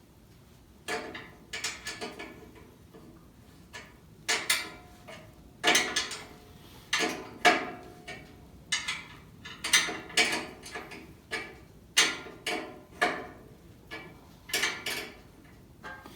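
Irregular sharp clanks and knocks, each ringing briefly, one or two a second: hand tools and metal parts being handled and set down during work on a cast-iron table saw.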